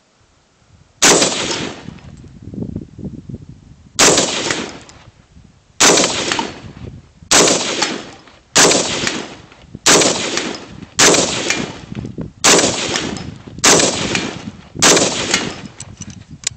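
AR-15 rifle firing .223 rounds in semi-automatic, ten shots spaced about one to three seconds apart, each sharp crack trailing off in an echo.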